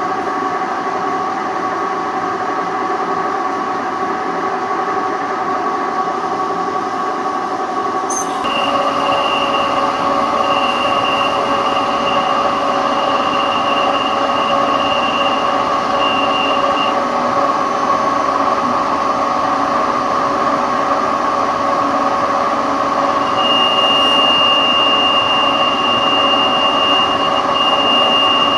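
Machine tool running steadily during a metal-cutting job. About eight seconds in there is a click, after which it runs louder with a high whine that comes and goes.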